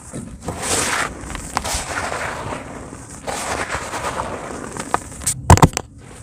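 Dry cement chunks crumbling and crunching in a tub, with a run of gritty crackles and clicks. About five and a half seconds in comes a short cluster of very loud sharp cracks.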